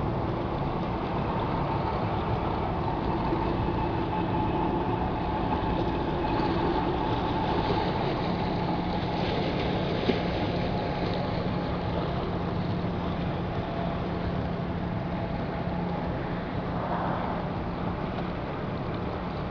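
Diesel engine of a motor cargo vessel on the river, running with a steady low drone over an even rush of noise. A single sharp click about ten seconds in.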